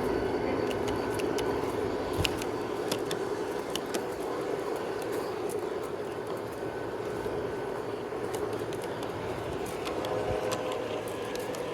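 G scale model train running steadily along its track: an even motor and wheel hum with scattered small clicks.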